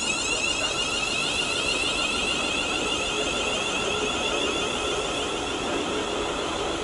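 Class 350 Desiro electric multiple unit pulling out. Its traction equipment gives off a high, whining hum made of several tones, which fades toward the end.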